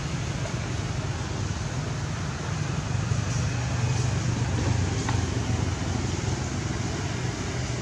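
Steady low hum over an even background rumble, unchanging throughout, in the manner of traffic or an engine running somewhere nearby.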